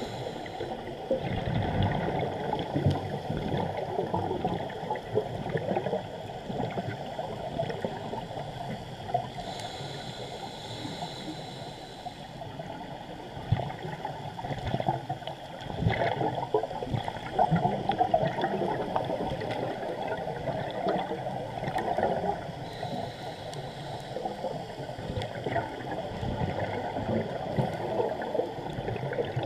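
Muffled underwater gurgling and bubbling from a scuba diver's regulator exhaust, heard through a GoPro's waterproof housing; it swells and fades irregularly, loudest about a second in and again around two-thirds of the way through.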